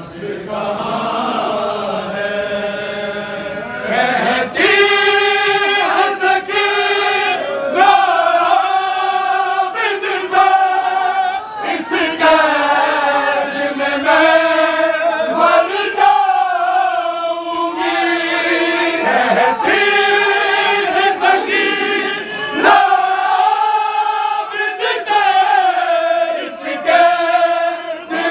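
A large group of men chanting a Muharram nauha in unison: a slow, mournful lament sung in long held phrases, each phrase stopping and starting again every few seconds, swelling louder about four seconds in.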